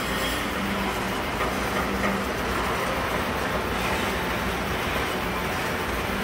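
Model trains running on a large miniature train layout: a steady, even running noise of trains on the track.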